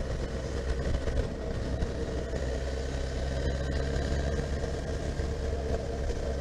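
Honda CB1300SF's inline-four engine running steadily while the motorcycle is ridden along a winding road.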